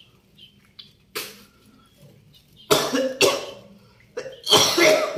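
A person coughing hard in harsh bursts: one cough about a second in, two close together near the middle, then a longer hacking cough near the end. The cough is a long-lasting one that has not healed.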